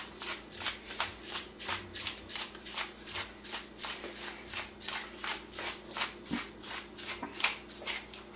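Tall pepper mill grinding black pepper: a steady run of short grinding strokes, about three or four a second, that stops near the end.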